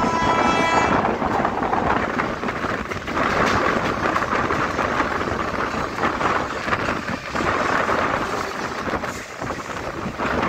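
Steady rumble and clatter of a moving train, heard from aboard with wind buffeting the microphone. A train horn sounds until about a second in.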